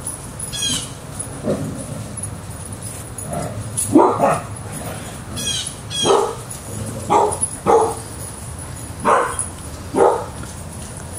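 Dog barking repeatedly: short single barks and a quick double bark, spaced a second or two apart.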